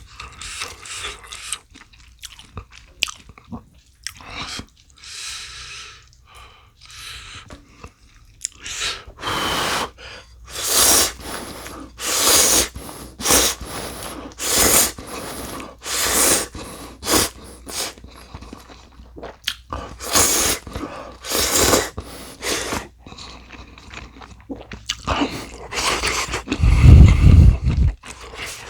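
Close-miked eating of ramen and kkakdugi (cubed radish kimchi): repeated chewing and crunching in short bursts, densest through the middle. A loud low rumble comes near the end.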